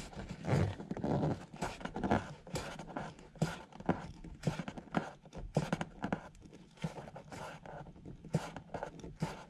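Irregular small clicks and rustling scrapes as a gloved hand twists a wind-deflector mounting knob tight on its bracket.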